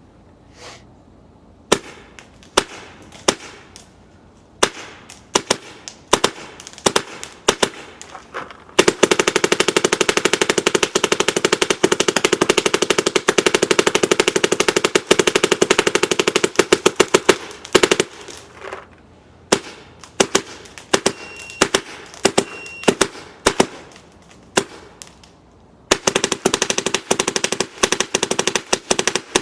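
Dye NT10 paintball gun firing: single shots at an uneven pace, then a long rapid string of shots in the middle, more single shots, and another rapid string near the end.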